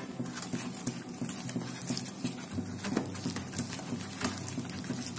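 Hand mixing gram flour and water into a batter in a stainless-steel bowl, with irregular wet squishing.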